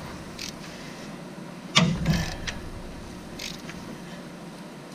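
A long wrench turning a Toyota V6 crankshaft over by hand to check the timing marks: one sharp metallic clunk about two seconds in and a few faint clicks over a steady background hum.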